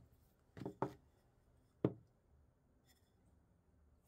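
A few light knocks and clicks: two close together just under a second in, then a sharper single knock a little under two seconds in, with faint ticks after.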